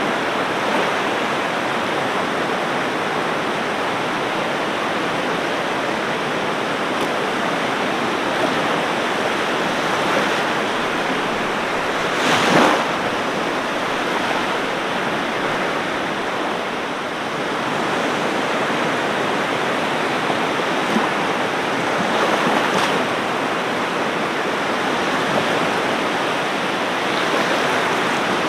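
Ocean surf washing in as a steady rush of breaking waves, with one louder wave cresting a little before halfway and a few smaller swells rising and falling.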